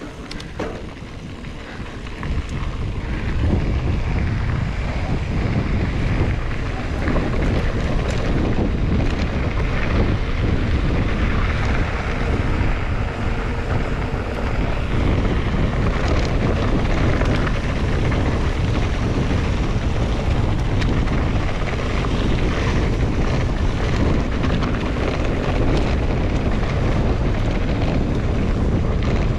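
Wind rumbling over a GoPro action camera's microphone on a moving mountain bike, rising over the first few seconds as speed builds and then holding steady, with faint knocks and rattles from the bike on rough ground.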